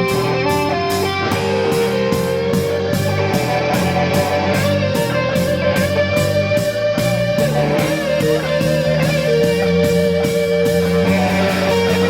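Live rock band playing an instrumental passage with no vocals: held melody notes over a moving bass line and a steady drum beat.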